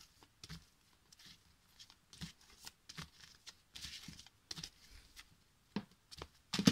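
A deck of oracle cards being shuffled by hand: a run of soft, irregular card slaps and rustles, with a louder snap near the end.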